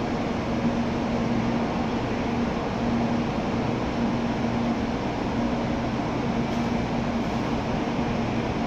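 Tokaido Shinkansen trains standing at the platform, their onboard equipment humming steadily, with a low tone that swells and fades every second or so.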